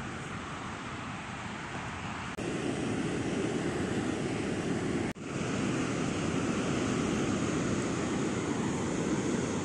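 Sea surf washing on the shore with wind buffeting the microphone. The sound cuts off abruptly twice, about two and a half and five seconds in, and comes back louder after the first break.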